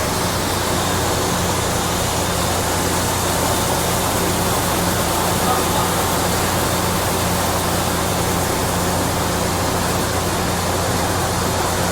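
Shin Nong rice mill running steadily: a constant electric-motor hum under an even, dense rushing noise.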